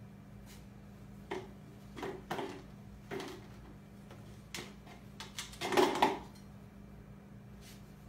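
Two young raccoons play-wrestling in a wire cage, giving a handful of short bursts of sound, the loudest about six seconds in, over a steady low hum.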